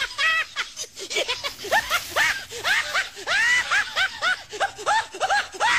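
High-pitched laughter: a quick, rhythmic run of short 'ha' syllables, each rising and falling in pitch, about three or four a second.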